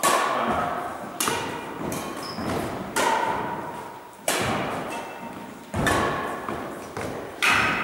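Badminton rally: rackets hitting the shuttlecock six times, a sharp hit every second and a half or so, each ringing on in the echo of a gym hall.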